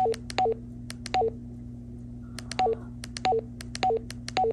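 Baofeng BF-18H handheld radio giving keypad beeps as its arrow keys are pressed to scroll through the menu: about seven short two-note beeps, a higher note dropping to a lower one, each led by the click of the key, over a low steady hum.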